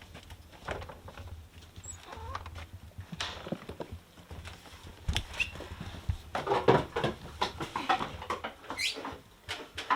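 A goat's hooves clattering and scraping on a milking stand: irregular knocks and shuffles, a busy cluster of them about two-thirds of the way through, as she steps about skittishly. A short rising squeak comes near the end.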